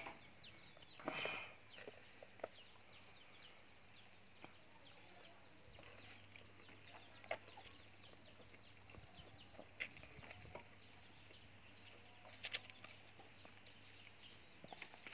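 Faint chickens peeping in the background: a steady run of short, high, falling chirps, about three or four a second, with a few faint clicks among them.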